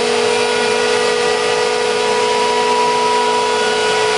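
A Kress 1050 router spindle on a DIY CNC router runs at speed with a steady high whine, over the rushing noise of the dust-extraction vacuum, as it cuts flexible clear PVC sheet.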